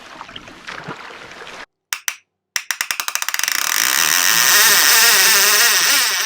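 About two and a half seconds in, a fishing reel's drag starts clicking, the clicks speeding up until they merge into a loud continuous whine as a running fish strips line off the reel.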